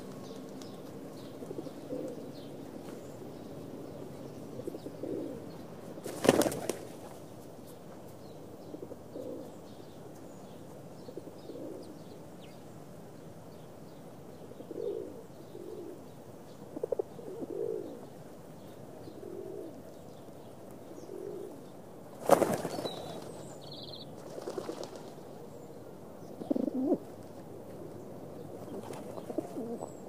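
Pigeons cooing over and over in low tones, with two loud flurries of wingbeats, one about six seconds in and another about twenty-two seconds in.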